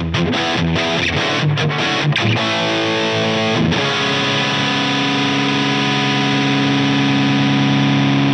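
Electric guitar with heavy distortion through a Line 6 HX Stomp multi-effects unit. Quick picked notes for the first few seconds, then a chord struck just under four seconds in and left to ring steadily.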